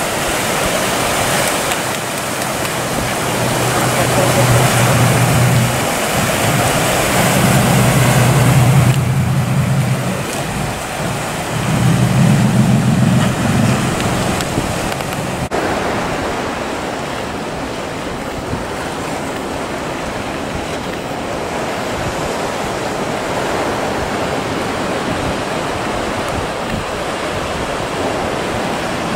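Small fishing boat's inboard diesel engine droning as it passes close, swelling louder several times, over sea chop and wind buffeting the microphone. About halfway through the engine drops out and only surf and wind noise remain.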